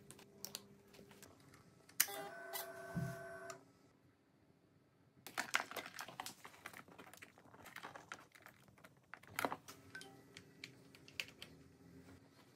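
Hands handling wiring and small plastic electrical parts: a blade fuse is pushed into its inline holder and wiring plugs are fitted together, giving a run of small clicks and rustles. About two seconds in there is a short louder burst with a ringing tone.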